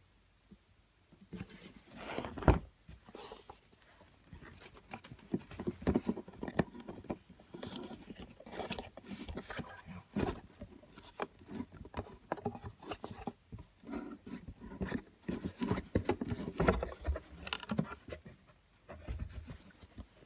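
Boxed fragrance packaging being handled and opened by hand: irregular scrapes, rustles and clicks, with a sharp knock about two seconds in.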